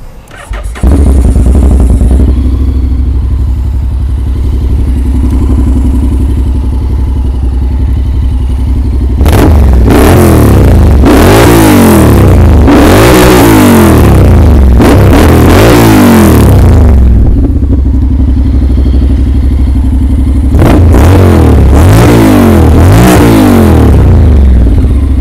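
2020 Honda X-ADV 750's parallel-twin engine with an Arrow full-system exhaust, starting up about a second in and idling. It is then revved in a spell of repeated throttle blips through the middle, settles back to idle, and is blipped again near the end.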